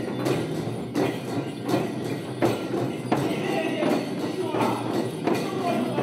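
Several shamans' dhyangro frame drums beaten together in a steady dance beat, with the jingling of the brass bells strung on their chest straps.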